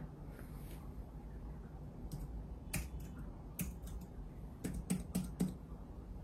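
Irregular keystrokes on a computer keyboard, sparse at first and then a quick run of keys near the end, as a wifi password is typed during macOS setup.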